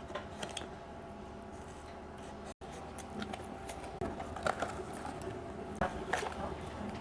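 Faint rustling, crinkling and small clicks of a blind-box toy's packaging being handled and opened by hand, sparse at first and busier in the second half. The sound drops out for a moment about two and a half seconds in.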